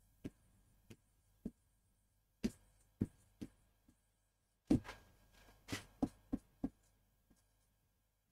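Faint, scattered taps of a stylus on an interactive smartboard screen while words are written by hand. There are about a dozen short taps at irregular intervals, with near silence between them.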